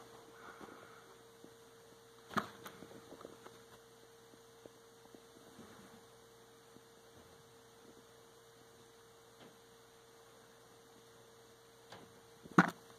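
Quiet room with a faint steady electrical hum. A sharp click about two seconds in, a few faint ticks after it, and a louder click near the end, from handling.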